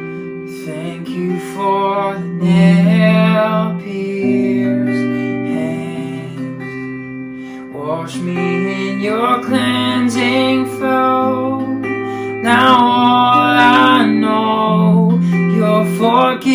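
Worship band music with no singing: a strummed acoustic guitar over held chords with a slow-moving bass.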